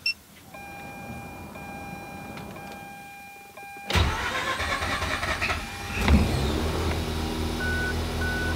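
A click and a faint steady hum, then about four seconds in the cold 2004 Mazda RX-8's rebuilt 13B Renesis rotary engine cranks on the starter for about two seconds and fires. It settles into a cold-start idle, and near the end a chime beeps about twice a second.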